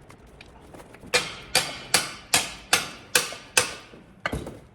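A steady run of seven sharp mallet blows on a Subaru EJ25 engine, about two and a half a second, each ringing briefly, then one more blow a little later. This is typical of knocking the engine case halves apart to get the crank out.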